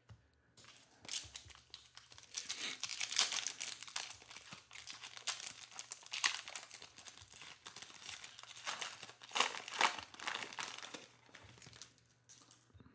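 Foil wrapper of a Panini Mosaic basketball card pack being torn open and crinkled by hand: a run of crackling rustles with a few louder flurries, dying away near the end.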